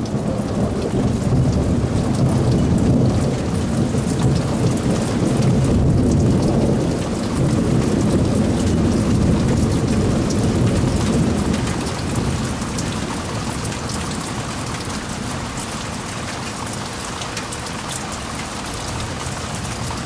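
Heavy rain pouring, with a long low rumble of thunder that swells through the first half and eases off after about twelve seconds, leaving steady rain.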